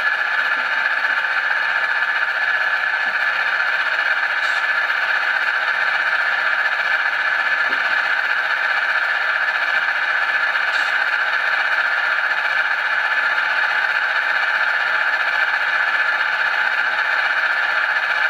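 Model diesel locomotive sound decoder playing a simulated EMD prime mover at a high throttle notch (notch 7–8) through a small 28 mm speaker. It runs at a steady, thin-sounding drone with no bass, the locomotive held stationary.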